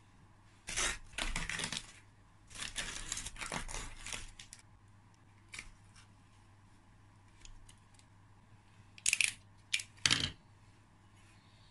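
Handling noise from engine casings being picked up and moved: two spells of rustling and scraping, then a few sharp clinks and knocks about nine to ten seconds in.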